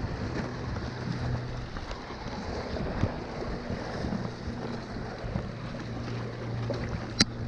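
Waves washing and breaking against jetty rocks, with wind buffeting the microphone and a low steady hum underneath. A single sharp click comes near the end.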